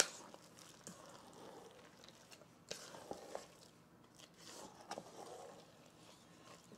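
Wooden spoon stirring thick, wet oatmeal batter in a stainless steel mixing bowl: faint scraping and squishing, with a few soft knocks of the spoon against the bowl.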